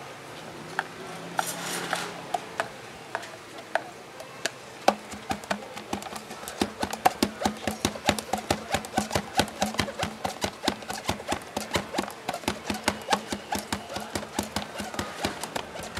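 Metal pestle pounding green lemon pieces in a plastic cup: a few scattered knocks at first, then from about five seconds in a fast, even run of about five knocks a second as the fruit is muddled for iced lemon tea.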